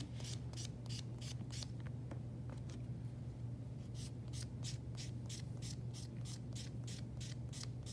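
Small nail buffer block rubbed back and forth across a mannequin hand's fingernails, a quick scratchy swishing at about three to four strokes a second, with a pause of about two seconds near the middle. A steady low hum runs underneath.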